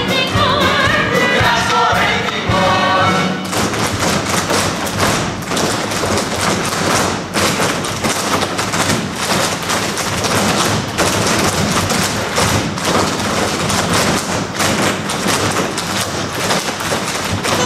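A large stage ensemble singing with the pit band, then about three seconds in the singing stops and a line of tap dancers takes over: dense, rapid taps and thuds of many feet on the stage over the band's music.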